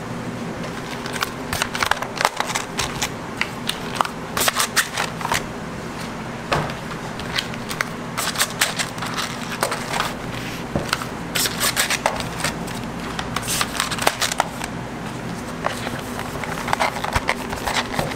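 Plastic chocolate trays and cardboard gift boxes being handled: irregular clicks, taps and crinkles of plastic lids and box lids set down on a steel table, over a steady low hum.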